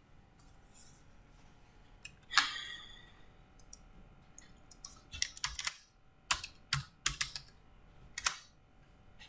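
Typing on a computer keyboard: a scattered run of separate keystrokes through the second half, following a short noise about two seconds in.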